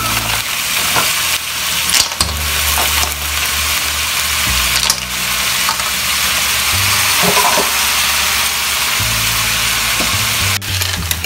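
Freshwater snails in their shells, still wet from washing, sizzling in a hot wok with sautéed ginger, onion and garlic, with a few sharp clicks. Background music with a steady bass line plays underneath.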